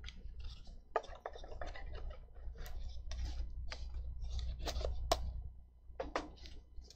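A run of irregular clicks and light knocks from handling things at a desk: red cardboard coin boxes being put away and a computer keyboard and mouse being worked. The sharpest clicks come about five and six seconds in, over a steady low hum.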